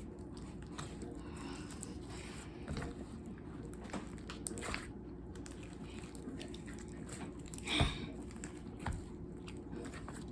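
Hands kneading and squishing a large mass of slime: irregular wet squelches and crackles, the loudest a little before eight seconds in.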